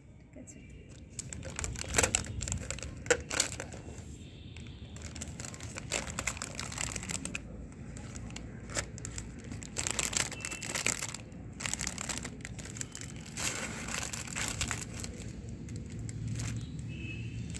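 Thin plastic film crinkling and rustling in irregular bursts as it is peeled off a clear plastic tub and handled, the sharpest crackles about two and three seconds in.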